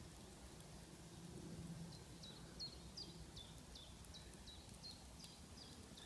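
A small bird repeating a short, high, sharp chirp, about two a second, faint over a low outdoor rumble.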